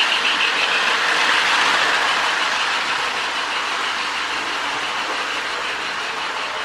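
Electronic steam-chuff sound from a Lionel Sound of Steam board, played through a small speaker in the tender of a Marx toy steam locomotive, together with the locomotive running on the track. The sound is a steady, rhythmic hissing chuff that gradually gets softer.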